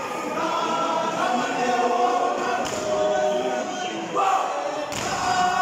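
Male voice choir singing a cappella in several-part harmony, holding long chords, with a couple of sharp foot stamps from the singers' unison dance steps.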